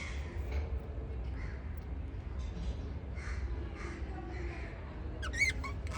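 Newly hatched lovebird chicks chirping in a string of short, rough calls, about two a second, with a louder, clearer call near the end. A steady low hum lies underneath.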